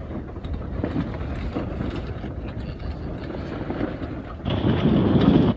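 Wind buffeting the microphone aboard a sailboat under sail, with a steady rush of wind and water. Near the end a louder gust-like rush lasts about a second and cuts off suddenly.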